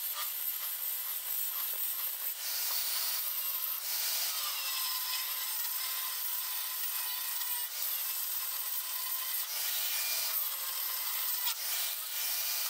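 Angle grinder with a thin abrasive disc grinding a groove along the crack in a cast iron exhaust manifold, a steady grinding hiss that wavers slightly as the disc bites: the crack being ground out to prepare it for welding.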